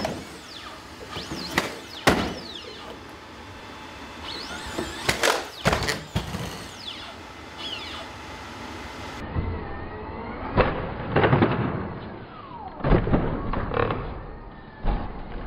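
Hydraulic humanoid robot (Boston Dynamics Atlas) landing jumps, handsprings and rolls: a series of heavy thuds of its feet and hands on the floor and blocks, some in quick clusters. Faint rising and falling whines sound between them.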